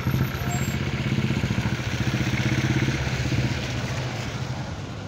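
Motorcycle engine running steadily while riding slowly, with wind and road noise over it.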